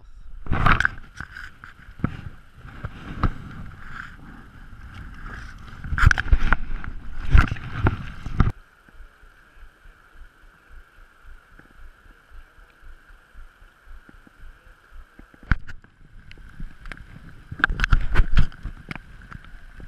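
Repeated knocks and rubbing against the camera, over a steady hiss of flowing river water. The knocks stop abruptly about eight and a half seconds in and return briefly near the end.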